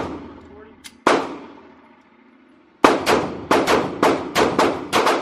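.40-calibre pistol shots echoing in an indoor range: a single shot about a second in, then, near the three-second mark, a rapid string of shots at about four a second.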